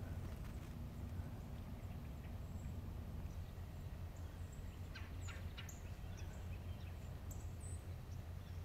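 Quiet outdoor ambience: a steady low rumble with faint, short high chirps and a few soft ticks about halfway through.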